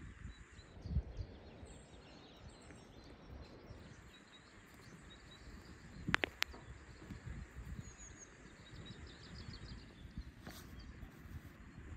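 Outdoor ambience: low, uneven wind noise on the microphone with faint bird chirps, and a quick run of two or three sharp clicks about six seconds in.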